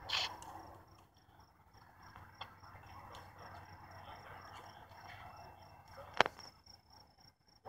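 Crickets chirping in a steady, rapid pulsing trill. There is a sharp click near the start and a louder one about six seconds in.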